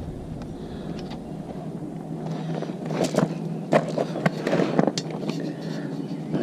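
Motorcycle clutch cable being handled and routed along a dirt bike's frame: scattered clicks, taps and scrapes of the cable housing against metal parts, clustered about halfway through, over a steady low hum.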